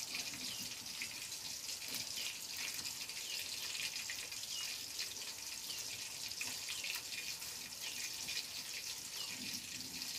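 Small wader fish deep-frying in oil in a wok: a steady hiss with scattered small crackles.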